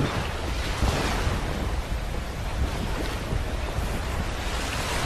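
Seaside ambience: a steady wash of surf with wind buffeting the microphone, rumbling at the low end.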